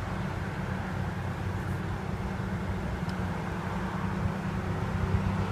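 Steady low rumble of an idling car engine, with outdoor background noise.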